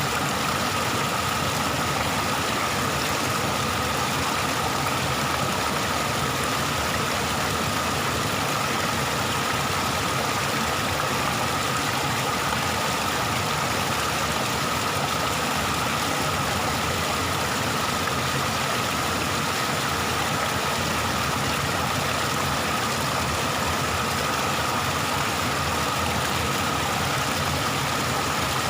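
Waterfall: a steady rush of falling water, even and unbroken, with one constant mid-pitched tone running through it.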